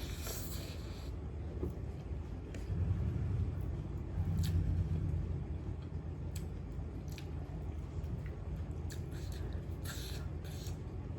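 A person chewing food with wet mouth sounds and a few short sharp clicks and smacks, over a low steady rumble.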